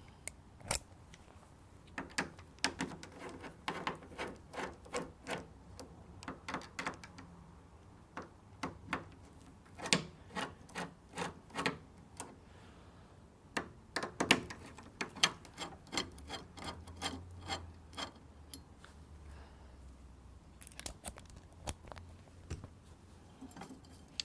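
Irregular clicks, taps and rubbing of small metal and plastic parts as a broken door-handle lock mechanism is handled and taken apart.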